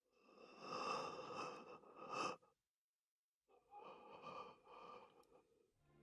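A mortally wounded man breathing with difficulty: two long breaths, each about two seconds, with a short silence between them.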